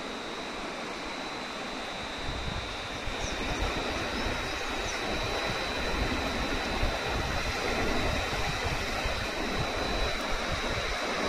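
Steady rush of flowing river water with a thin, steady high whine over it. An uneven low rumble builds a couple of seconds in.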